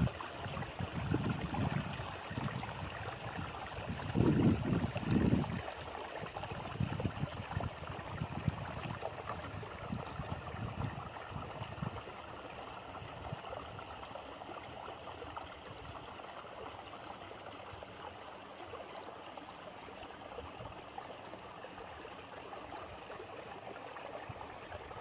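Open-air ambience: a steady rushing hiss. In the first half, irregular low rumbling gusts of wind buffet the microphone, then die away.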